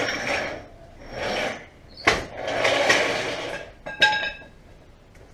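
Steel trolley jack being dragged across a concrete driveway: three stretches of rough scraping and rolling from its wheels, with a sharp knock about two seconds in and a ringing metal clank about four seconds in.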